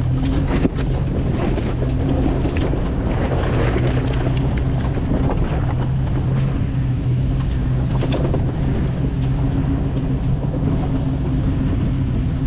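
Off-road vehicle engine running steadily as it drives a rough trail, with scattered knocks and rattles throughout.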